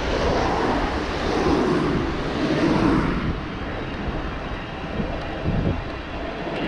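Passing traffic heard from a moving bicycle: cars and a van go by in the oncoming lane over a steady rush of wind on the microphone. The noise swells as the first vehicles pass and eases after about three seconds.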